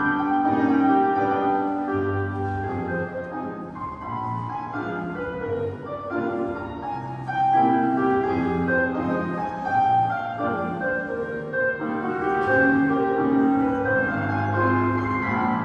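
Classical piano music playing, a melody with chords at a moderate tempo, as accompaniment for a ballet exercise.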